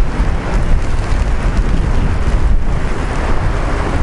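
Storm wind buffeting the microphone in a continuous low rumble, with heavy storm surf behind it.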